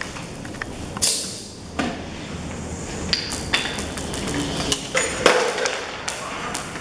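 Chain-reaction contraption of workshop objects and car parts running: a string of knocks and clatters as pieces fall and strike one another, with sharp metallic pings, one ringing on for about a second from near five seconds in.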